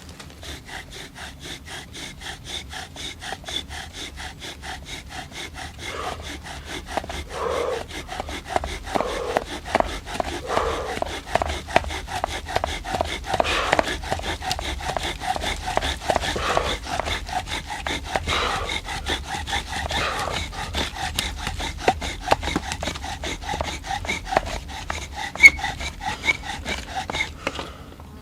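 Bow-drill fire-lighting: a wooden spindle spun back and forth in the notch of a hearth board by rapid, even bow strokes, louder from about six seconds in. The strokes stop just before the end, with an ember formed.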